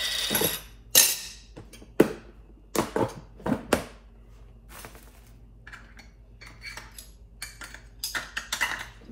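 Sharp clinks and knocks from a glass honey jar and kitchen utensils being handled on a wooden table. There is a brief scraping rustle at the start, a run of separate clicks over the first four seconds, faint small taps after that, and a cluster of clinks near the end.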